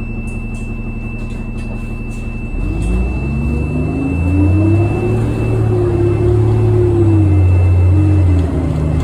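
Orion city bus diesel engine idling, then picking up about two and a half seconds in, its note rising and holding with a brief dip near the end. A thin steady whine sits over it and stops about six seconds in.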